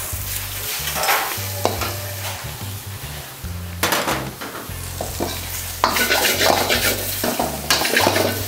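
Raw chicken pieces sizzling in hot masala in an iron kadai, with a steel ladle scraping and turning them against the pan. The scraping strokes get louder and busier about six seconds in.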